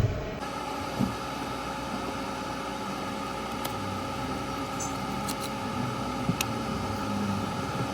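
Hot-air rework station blowing steadily, a fan-driven hiss, with a few small sharp clicks.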